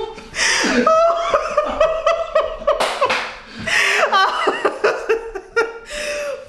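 A woman laughing in a high voice: runs of short giggles, with a rising-and-falling squeal about four seconds in and a brief sharp noisy burst near the middle.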